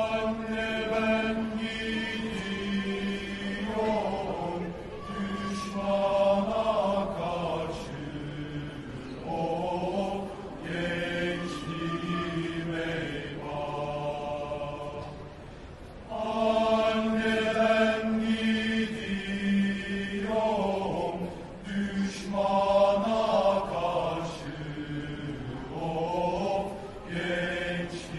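Male choir singing a slow song together, with long held notes. The opening phrase comes round again about halfway through.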